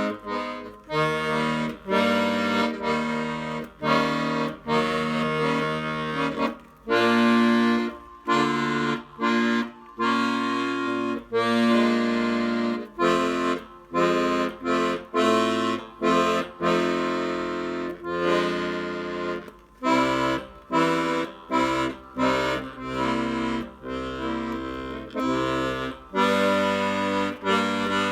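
Hohner Student 72 piano accordion after repair, its bass side played: a series of bass notes and chords, each held briefly with short breaks between them.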